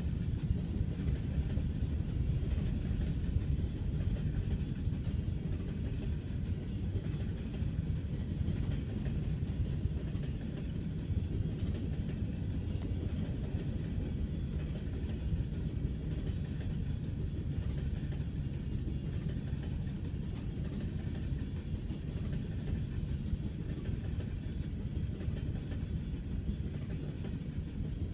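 Freight train of BNSF covered hopper cars rolling past, with a steady low rumble of wheels on the rails.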